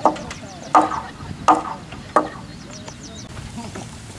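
Four sharp, evenly spaced blows of a tool striking, about one every three-quarters of a second, then stopping a little past two seconds in. A small bird chirps high in the background.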